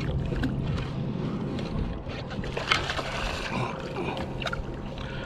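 Wind and water noise around a fishing kayak on the open sea, with a steady low rumble and a few short sharp clicks and knocks, the sharpest a little under three seconds in.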